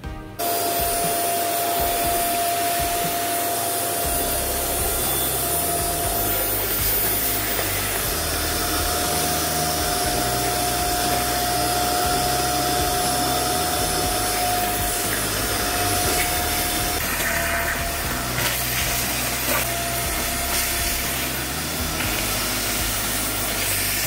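Eureka 1200-watt canister vacuum cleaner running with its crevice nozzle sucking up soil and rust flakes. A steady whine sits over the rush of air. The sound comes in abruptly less than a second in.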